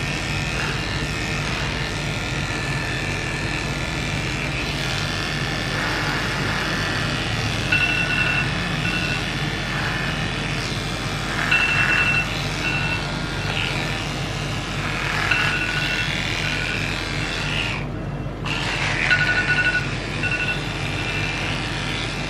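Electric pet clippers running steadily as they shave a dog's coat. Groups of short high beeps come every few seconds over the hum.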